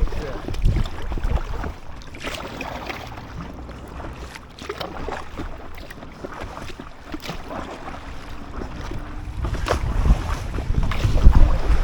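Wind buffeting the microphone in gusts, growing stronger near the end, with water splashing and slapping around an inflatable kayak out on choppy open water.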